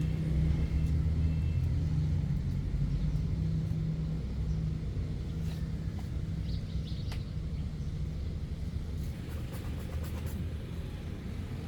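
Steady low rumble, strongest in the first few seconds, with a few faint clicks.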